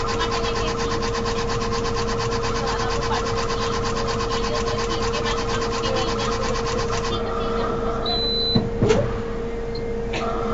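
Gantry personalisation machine running: a steady hum under a fast, even ticking from its moving head. The ticking stops about seven seconds in, with a short high beep and a couple of clicks, and starts again near the end.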